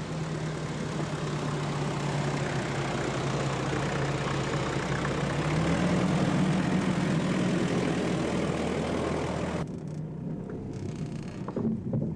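Jeep Cherokee engine running under load as the vehicle climbs a sandy slope, the pitch rising a little about halfway through. Near the end the sound drops suddenly to a quieter running noise with a few knocks.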